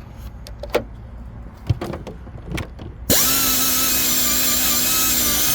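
A few light clicks, then about three seconds in a cordless power drill or driver starts and runs at a steady high whine, used in replacing the engine's water pump.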